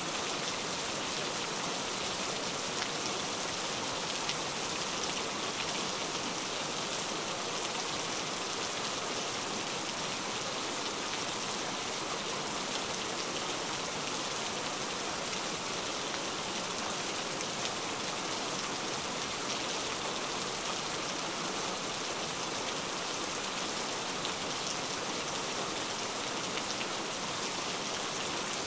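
Heavy rain falling steadily: an even hiss of downpour with a fine patter of drops, unchanging in strength.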